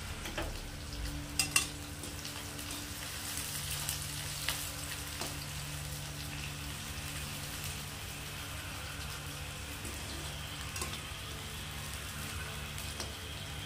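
Chopped onions sizzling steadily as they fry in hot mustard oil in a steel kadhai, browning. A few sharp clicks of the spatula against the pan, the loudest about a second and a half in.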